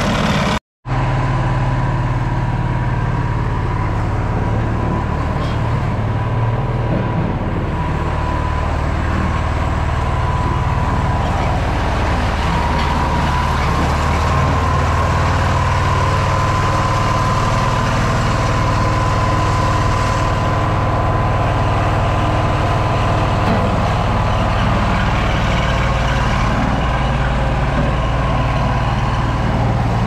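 Engine of a walk-behind double-drum roller compactor running steadily as it rolls and compacts the soil fill over foundation footings. The sound drops out for an instant under a second in, then runs on unchanged.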